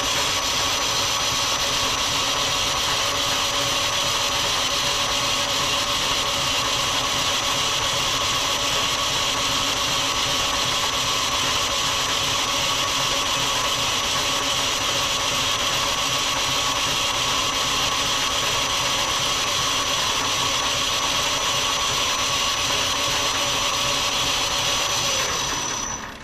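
Metal lathe running steadily while a parting tool is fed in to part a small turned piece off the bar stock, a constant mechanical whine of motor and gearing with the cutting noise. The lathe winds down and stops near the end.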